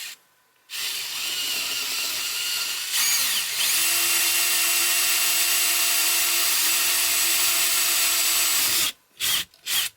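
Handheld electric power tool running in wood for about eight seconds, its motor pitch and level stepping up about three seconds in, then two short blips of the trigger near the end.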